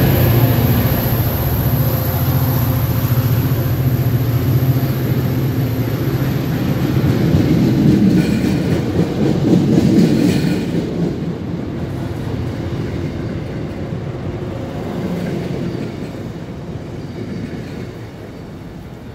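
MBTA commuter rail train passing at speed: a low steady drone from the diesel locomotive, then loud rushing wheel-on-rail noise as the bilevel coaches go by, fading away over the last several seconds as the train moves off.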